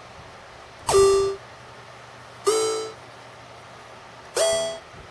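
Google's Moog synthesizer doodle playing from a laptop: three short synthesizer notes about a second and a half apart. Each starts with a brief swoop in pitch, and the last one is the highest.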